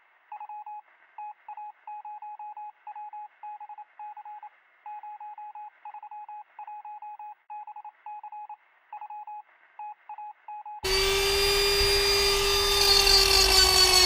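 Electronic beeping at one pitch, switching on and off in an irregular pattern of short and long beeps like a Morse code sound effect. About eleven seconds in, it gives way to a Dremel rotary tool with a sanding drum starting up and running steadily at high speed, used to round off the edges of a wooden box.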